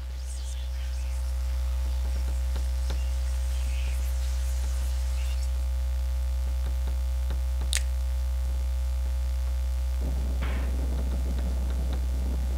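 Deep, steady low drone from a film soundtrack that swells in over the first second or two and then holds, with faint crackling over it. A brief high sweep cuts through about three-quarters of the way in, and a rougher crackling noise joins near the end.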